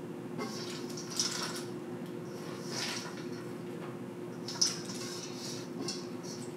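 A spatula scraping and tipping nuts and dried fruit out of a stainless-steel mixing bowl onto granola on baking sheets: intermittent rustling scrapes with a sharp knock a little past four and a half seconds in, over a steady low hum.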